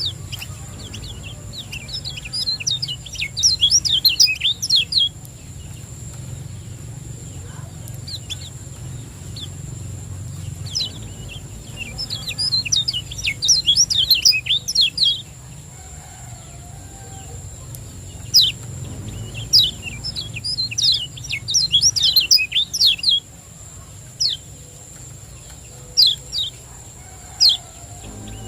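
Kecial kuning (Lombok white-eye) singing in bursts of rapid, high chirping phrases, each a few seconds long, with short pauses between them. A steady high whine and a low hum run underneath.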